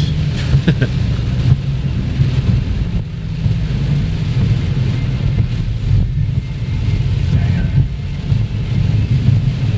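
Steady low rumble inside a moving car's cabin, with engine and tyre noise on a wet road and a faint hiss of rain.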